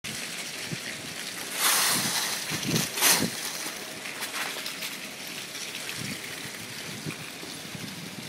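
Wind blowing and dry autumn leaves rustling, a steady hiss with two louder rushes about one and a half and three seconds in.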